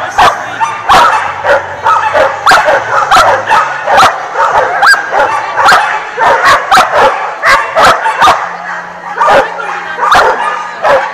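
Dog barking and yipping excitedly in quick succession, sharp loud barks coming several times a second, as at a dog agility run.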